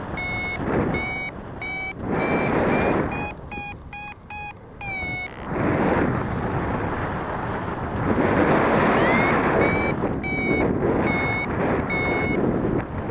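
Paraglider variometer beeping in short repeated tones, about two a second, quickening to a fast run of beeps around the 4-second mark as the climb strengthens. The beeps stop for a few seconds and resume near the end. Loud wind rushes over the microphone throughout.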